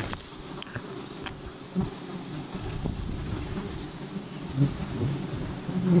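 Wild honeybees buzzing close around the microphone, the drone swelling and fading unevenly as they fly past, with a few light knocks in the first second or so.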